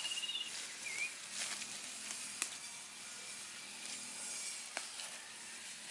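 Hands pulling and plucking leafy garden plants, leaves rustling softly, with two sharp clicks about two and a half and five seconds in. A high trilling call stops half a second in, and a short chirp follows about a second in.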